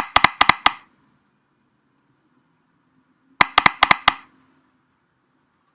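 Two quick runs of about six sharp metallic clinks each, the second run starting about three and a half seconds after the first.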